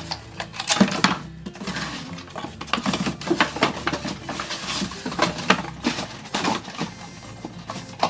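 Cardboard packaging being handled: inserts knocked against and slid into a cardboard box, a run of irregular dull knocks, scrapes and rustles.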